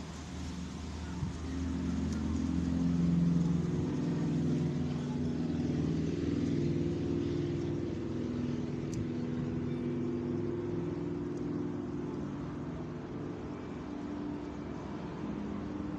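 A motor vehicle's engine running nearby, a low hum that swells about two seconds in and slowly eases off.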